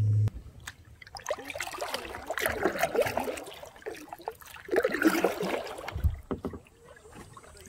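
Kayak paddle strokes in calm water: the blade dips and pulls through, splashing and dripping, two strokes a couple of seconds apart, with a low thump about six seconds in.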